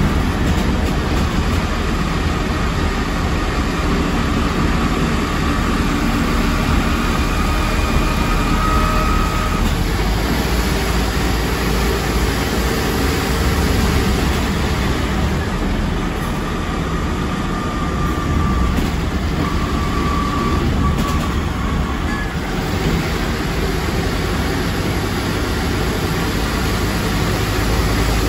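Scania K230UB bus under way, heard through an open floor hatch: its 9.3-litre Scania DC09 engine and ZF Ecomat IV 6HP504C automatic gearbox running steadily, with a faint whine that comes and goes a few times.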